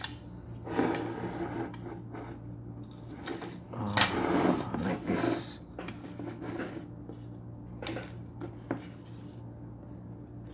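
Opened plastic massager unit being handled and shifted on a workbench: rubbing and scraping, loudest about four to five and a half seconds in, with a couple of light knocks around eight seconds in.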